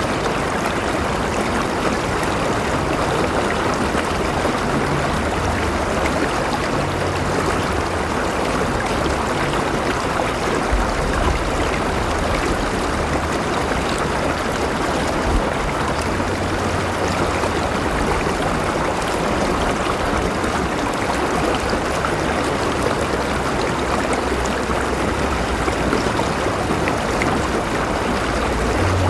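River water flowing and rushing over rocks in a steady, even stream, with a low rumble underneath.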